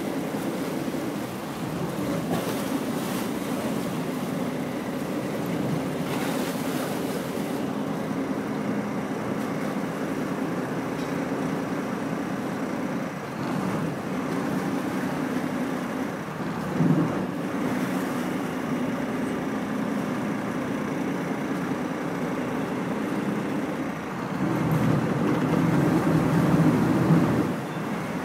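CityCat catamaran ferry's engines running with a steady drone, with water and wind rushing past the open deck. A short knock sounds about halfway through. The drone swells louder for a few seconds near the end as the ferry comes in to berth at the terminal pontoon.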